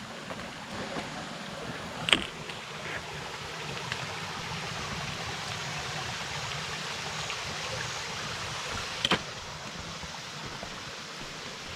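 Creek water flowing steadily, a little louder in the middle, with two sharp clicks, one about two seconds in and one about nine seconds in.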